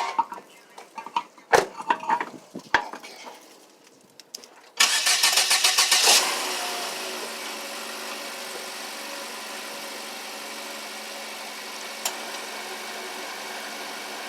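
A few light knocks, then about five seconds in a car engine is cranked by its starter for over a second, catches, and settles into a steady idle.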